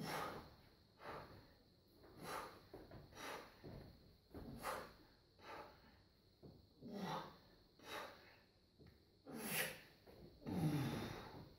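A weightlifter breathing hard in short, sharp breaths about once a second while holding a barbell at his shoulders, readying for the next jerk. The last few breaths, near the end, are louder and voiced.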